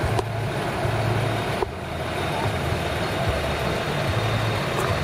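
An engine idling steadily, a low uneven hum, with one or two faint clicks early on.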